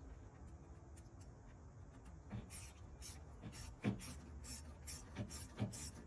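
Light, irregular clicks and taps of hand tools and parts being handled during engine reassembly, starting about two seconds in and coming a few times a second over a low steady hum.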